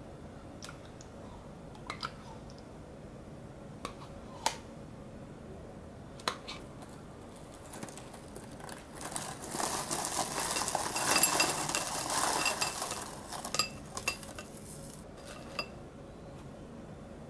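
Froot Loops cereal poured from its carton into a ceramic bowl: a dry rattle of pieces striking the bowl, with small ringing pings, lasting several seconds in the middle and tailing off into a few single clicks. Before the pour, a handful of light clicks and taps.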